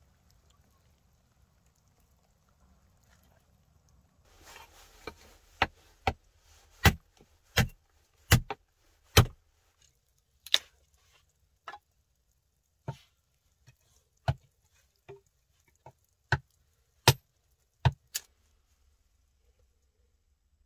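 Wood being chopped: about twenty sharp strikes at uneven intervals of half a second to a second, after a brief rustle.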